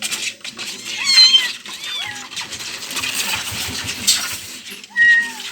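Young kittens meowing: three short, high-pitched mews about a second, two seconds and five seconds in, with scattered rustling and clicks between them.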